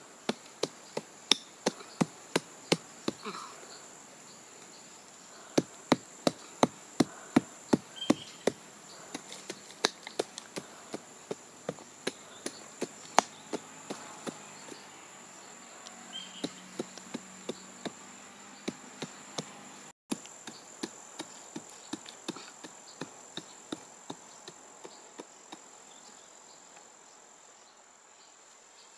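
Small hand pick chopping into dry forest soil: a long series of sharp strikes, often about two a second, that stop shortly before the end. A steady high insect buzz runs underneath.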